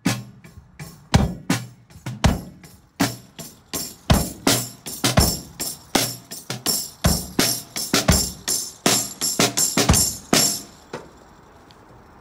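A busted old acoustic drum kit played with sticks and a kick pedal: a loose, uneven run of kick, snare and tom hits with bright high ringing over them, stopping near the end.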